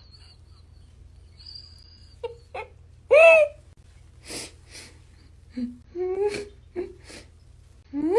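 A cat meows once, loudly, about three seconds in. Softer short sounds follow: a couple of brief hissy noises and a few low murmurs.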